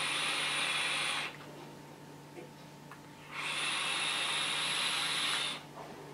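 E-cigarette being vaped: a steady hiss of air drawn through the atomizer as the coil fires, with a thin high whistle on top, in two draws. The first ends about a second in, and the second starts about three seconds in and lasts about two seconds.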